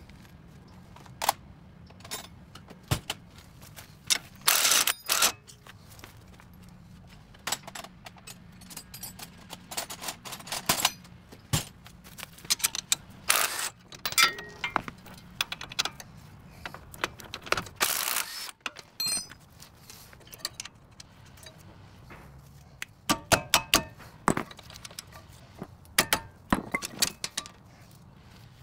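Metal tools and car parts clinking and knocking in scattered sharp clicks, with a couple of longer scraping bursts and a quick run of clicks about two-thirds of the way in. A low steady hum sits underneath.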